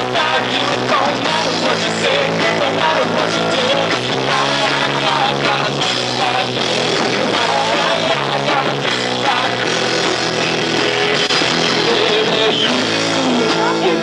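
A live rock band playing a song, with electric guitars, bass guitar and a drum kit, at a steady level.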